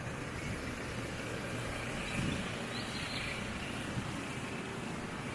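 Steady outdoor roadside ambience: a low rumble that swells briefly about two seconds in.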